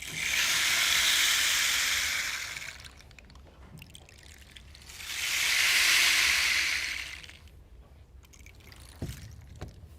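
Recorded nature sound of rushing water, swelling and fading twice, each surge lasting about two and a half seconds with a lull between. A short knock comes near the end.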